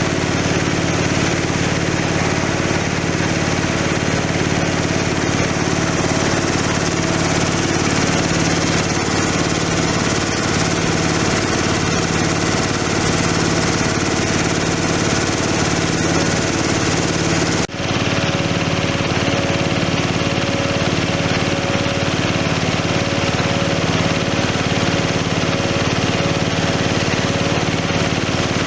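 Engine-driven rice husk grinding machine running steadily, a continuous mechanical drone with a grinding hiss, broken by a momentary dip about two-thirds of the way through.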